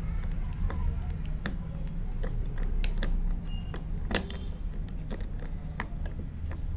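Phillips head screw being turned out of a wooden block by hand with a steel spinner handle and Phillips bit socket: irregular small metallic clicks and taps, the loudest about four seconds in, over a low steady hum.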